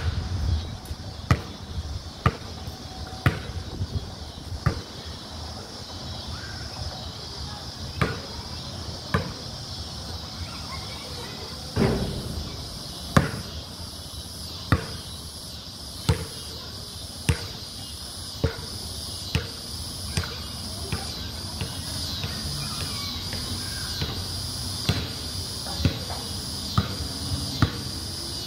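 A basketball bouncing on a concrete court: about twenty sharp single bounces, scattered at first, then a steady dribble of roughly one bounce a second from about halfway through. A steady high insect buzz runs underneath.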